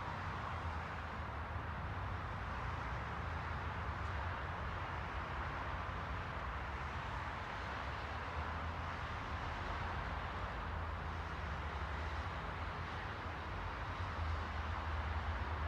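Steady rushing ambient noise with a constant low rumble underneath and no distinct events.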